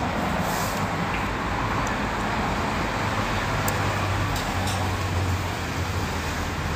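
Steady road traffic noise with a low engine drone that grows stronger for a few seconds in the middle, and a few faint ticks.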